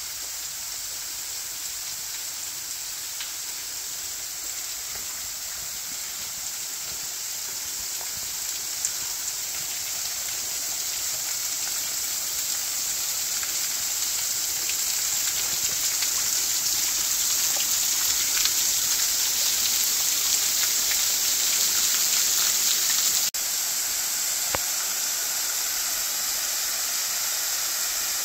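Small waterfall splashing onto rocks and a pool: a steady hiss of falling water. It grows louder over the first twenty seconds, then drops a little, suddenly, about 23 seconds in.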